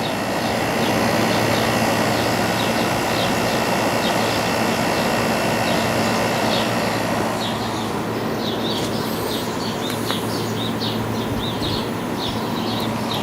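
Hampton Bay 5,100 BTU window air conditioner (built by Fedders) running with its Samsung compressor and LG fan motor: a steady low hum under the even rush of the blower's air, the compressor running smooth. Birds chirp faintly in the second half.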